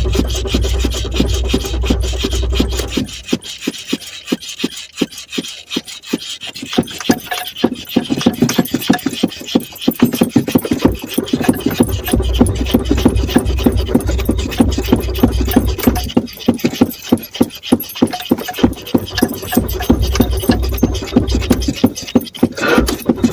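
A car engine being cranked over by its starter: a fast, even churning that never catches, with a deep hum that comes and goes. The car has run out of fuel.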